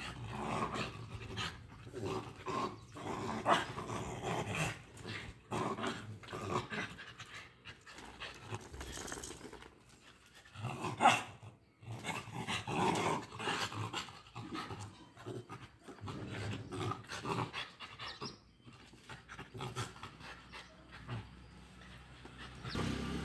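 A Pomeranian and a Lhasa apso scuffling in a small-dog fight: irregular bursts of growling and snapping with panting in between, the loudest burst about eleven seconds in.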